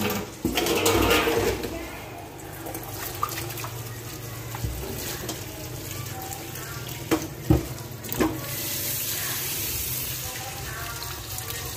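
Tap water running into a stainless steel basin in a sink while hands rinse and turn cucumbers in it. Three sharp knocks come between about seven and eight seconds in.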